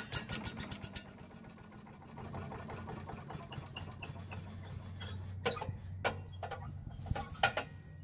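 Small single-cylinder engine of a walk-behind leaf vacuum and mulcher catching after a pull start, with rapid firing ticks in the first second, then settling into a steady run. It starts now that stale gas has been flushed from the fuel line and carburetor. A few louder short bursts come over the hum in the second half.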